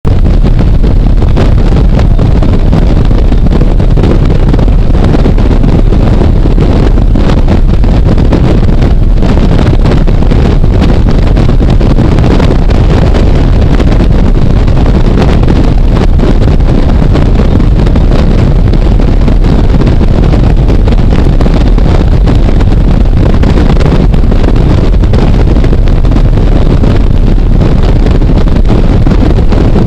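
Heavy, steady wind rushing over a helmet-mounted camera's microphone on a motorcycle at highway speed, with the motorcycle's running noise under it.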